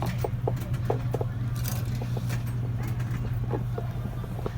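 Vending machine being worked: a steady low hum with irregular small clicks and knocks, several a second.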